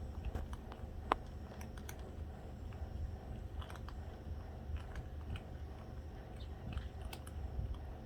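Cats crunching dry food: irregular small clicks and crunches, one sharper click about a second in, over a steady low rumble.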